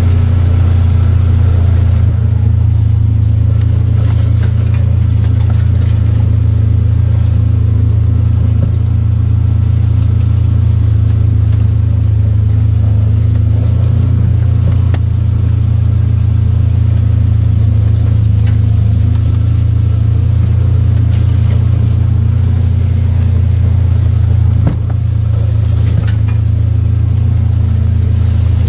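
Vehicle engine running at a steady low drone while driving along, with little change except a slight drop in level about 25 seconds in.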